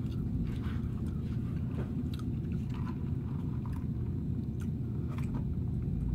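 A person chewing a crispy fried fish sandwich, with scattered small crunches, over a steady low rumble.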